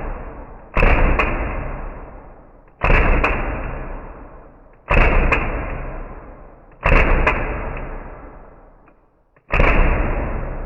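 CO2 airsoft pistol, an ASG STI 2011 Combat Master, fired five times about two seconds apart. Each shot is followed by a sharp click a fraction of a second later, and each fades out slowly.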